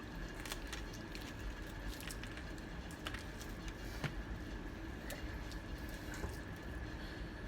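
Faint eating sounds of people chewing fried chicken: small wet mouth clicks and squishes scattered through, over a faint steady background tone.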